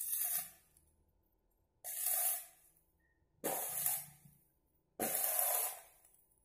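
Stick welder's arc crackling in four short bursts, the last the longest, as tack welds are laid on a steel tube frame.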